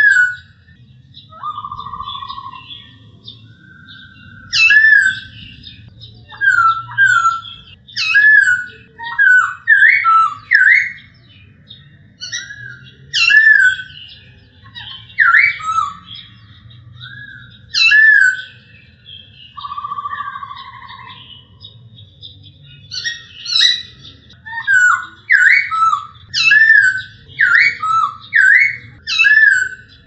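Male black-throated laughingthrush singing: loud, clear whistled phrases of rising and falling notes, repeated every second or two, with a long level whistle about two seconds in and again about two-thirds through. After a short pause the phrases come faster near the end.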